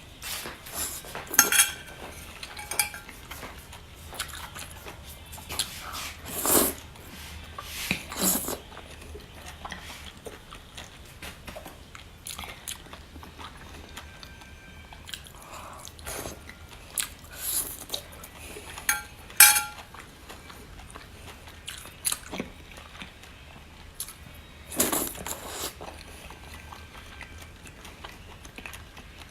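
A person eating: irregular bites and chewing, with sharp clicks of utensils against dishes now and then, the loudest about two-thirds of the way through.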